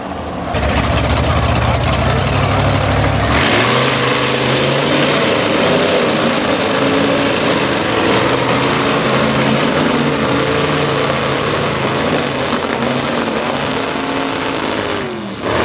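Mud-bog truck engine running hard in a dirt pit. A deep rumble for the first three seconds gives way to revving that rises and falls, and the pitch drops near the end as the throttle comes off.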